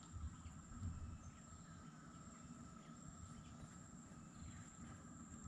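Faint steady insect drone, one high thin tone over a lower one, holding unchanged, over a low rumble.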